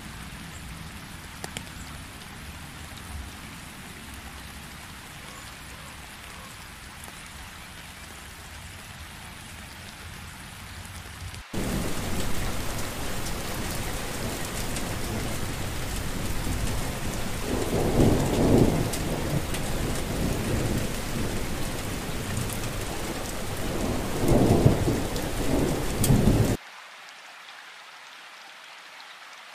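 Steady rain falling on wet ground and puddles. About a third of the way in it switches abruptly to much louder, heavier rain, with thunder rumbling twice. Near the end it cuts back to softer rain.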